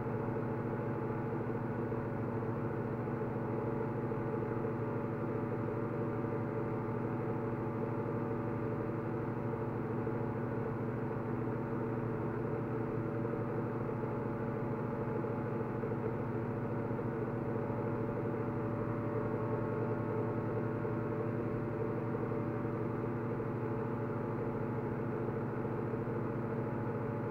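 A steady low machine hum made of several even tones, holding at the same pitch and level throughout.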